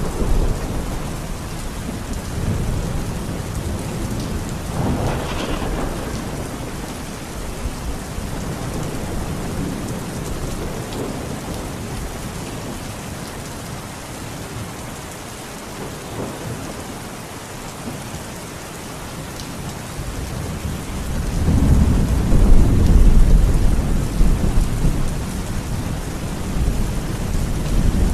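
Steady rain falling during a thunderstorm, with thunder rumbling. One peal comes about five seconds in, and a longer, deeper rumble, the loudest sound here, swells about three-quarters of the way through.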